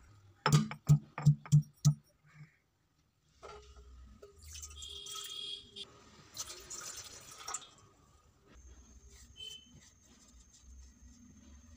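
Stone pestle pounding spices in a stone mortar, about six quick strokes in the first two seconds. Then water pours and splashes into a steel saucepan for about four seconds.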